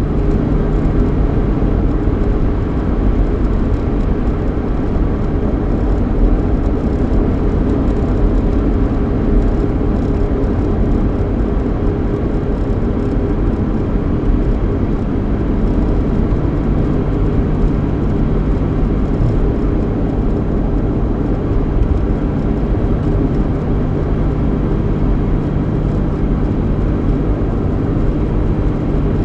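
Steady road noise and engine hum inside the cabin of a Mustang with a 3.8-litre V6, heard while it is driving: a continuous low rumble with a steady low engine tone.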